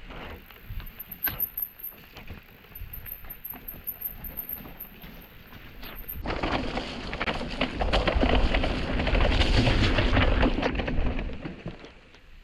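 Mountain bike rattling and knocking over rough, wet trail ground. From about six seconds it gives way to a louder, dense rush of tyres through mud and water, with many small splashes and hits, which fades near the end.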